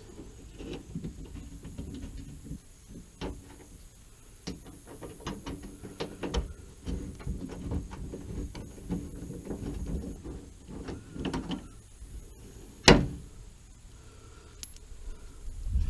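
Scattered small clicks and scrapes of bolts and hand tools being worked by hand in a truck's wheel well, with one sharp knock late on.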